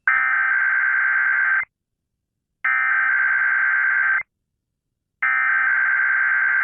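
Emergency Alert System SAME header: three identical bursts of digital data tones, each about a second and a half long with a second of silence between, opening an EAS test.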